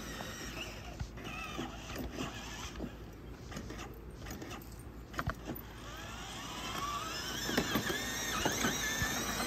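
Battery-powered ride-on toy car's electric motor whirring as it drives, with a few light clicks.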